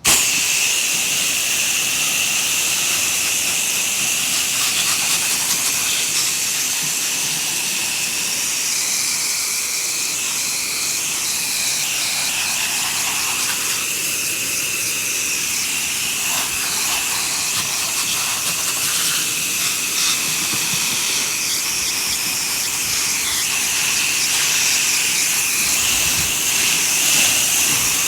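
Spray nozzle hissing steadily as soap solution is sprayed in a soft wash, with a constant high whistle over the hiss. It starts abruptly and runs on without a break.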